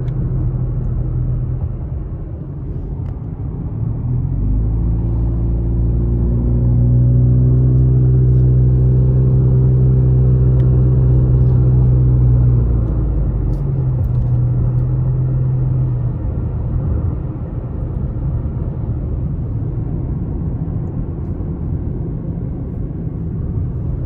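A car driving, heard from inside: a steady low rumble of engine and road noise. From about four seconds in, the engine's hum grows louder and deeper, then eases back after about thirteen seconds.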